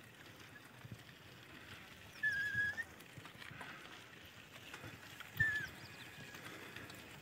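Bicycle ridden over a rough dirt track: faint rattling and bumps, with two short high squeaks, one about two seconds in and another about five seconds in, the second along with a thump.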